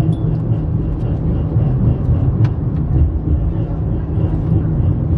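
Penang Hill funicular car running downhill on its rails, heard from inside the car: a steady low rumble with a few faint clicks.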